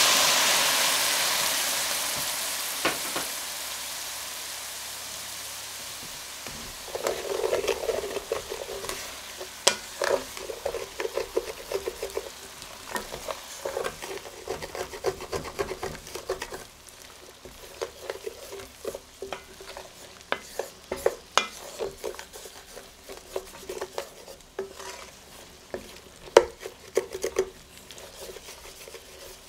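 White wine sizzling and hissing as it deglazes a hot pan of chopped onion, garlic and ginger, fading away over the first several seconds. Then a wooden spatula stirs and scrapes the onions around the metal pan in irregular scrapes and taps.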